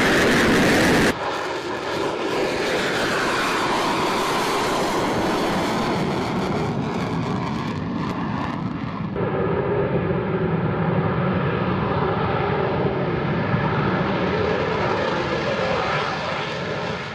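F-35 Lightning II's jet engine: a loud roar whose pitch slides down over the first few seconds, then, after an abrupt change about nine seconds in, a steadier run with several held whining tones, fading near the end.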